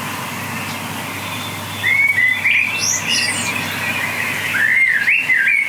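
Small birds chirping in quick runs of short rising and falling notes, clustered from about two seconds in and again near the end, over a steady background hiss.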